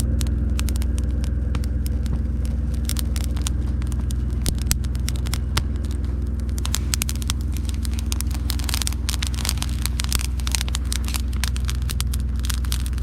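Kindling of small dry twigs and fallen wood catching in a campfire, crackling with sharp snaps that come much thicker about halfway through as the fire takes hold. A steady low hum runs underneath.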